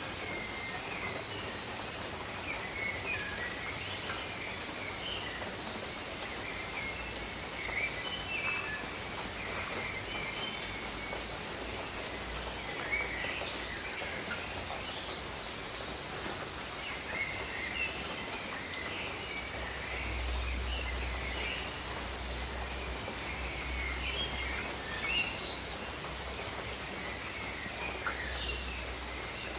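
Steady gentle rain falling on garden foliage, with small birds chirping on and off throughout and a faint low rumble in the second half.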